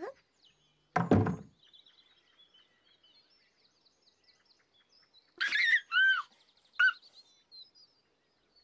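A door slams shut with one loud thump about a second in, over faint chirping birdsong. A few short, loud, high-pitched gliding calls follow around the middle.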